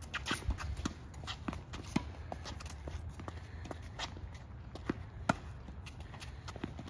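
Tennis balls being struck by racquets and bouncing on a hard court, mixed with the footsteps of players running: scattered sharp pops and knocks at an uneven pace, the loudest about five seconds in.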